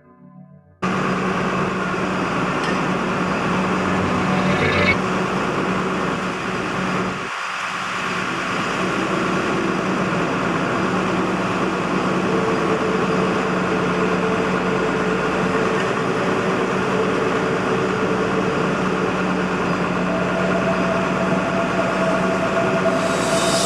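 Massenza MI45 truck-mounted drilling rig running steadily, its engine and machinery giving a constant low hum under heavy mechanical noise. It cuts in suddenly just under a second in and dips briefly about seven seconds in.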